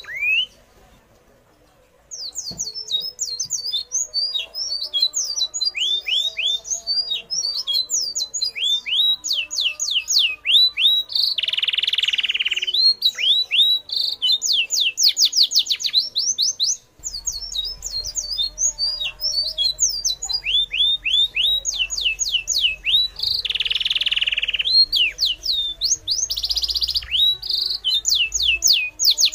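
Birds chirping continuously in quick series of short, high, downward-sliding notes. A harsher buzzy call cuts in twice, lasting about a second and a half each time. The sound drops out for about two seconds near the start.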